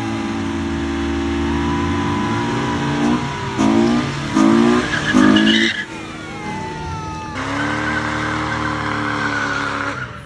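Chevrolet Camaro doing a burnout: engine held at high revs with the rear tyres spinning and squealing, then three short rev surges a little under a second apart. About seven seconds in the sound changes to another car engine held at high revs with tyre squeal.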